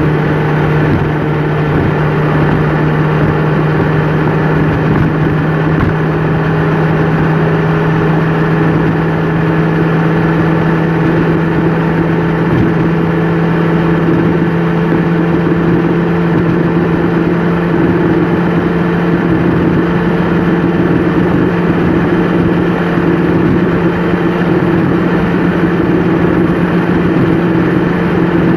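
Vehicle engine running at a steady cruising speed, heard from inside the cab, with a constant-pitch hum over steady road and tyre noise.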